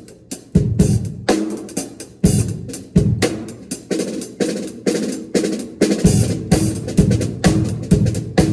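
Drum kit played in a steady groove at a sound check, with kick drum, snare and cymbals. The playing gets busier about six seconds in.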